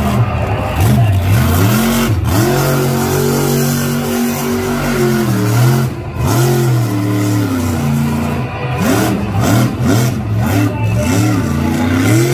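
Monster truck engine revving hard under throttle. It climbs and holds high for a few seconds, drops away about six seconds in, then gives a run of quick rev blips near the end.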